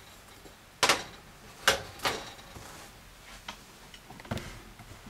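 Hot hard-boiled eggs set into a ceramic bowl, knocking against the bowl and each other: three sharp knocks in the first couple of seconds, then a few fainter ones.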